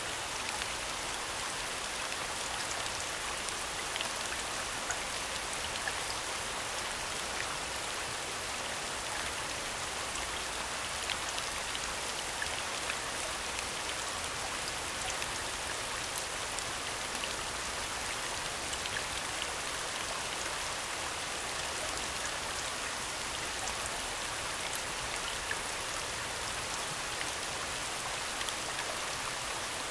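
Recorded rain falling steadily: an even hiss of many drops, with small scattered drop ticks.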